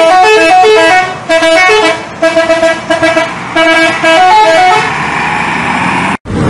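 Bus 'telolet' horn, a multi-tone musical air horn, playing loud melodic phrases of quick stepping notes. About five seconds in the tune stops and a steady rushing noise follows, cut off suddenly near the end.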